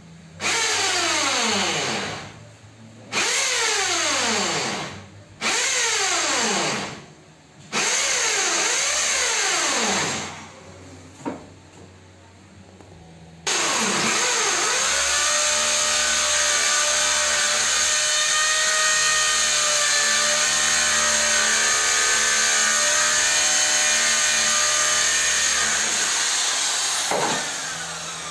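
Corded electric drill drilling into the ceiling: four short trigger pulls, each motor run winding down in falling pitch, then one long steady run of about thirteen seconds that winds down near the end.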